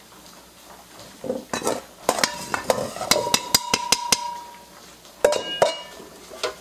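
Metal measuring cup tapped repeatedly against the stand-mixer bowl to knock out flour: a quick run of sharp taps, some with a brief metallic ring, then two or three more knocks about five seconds in.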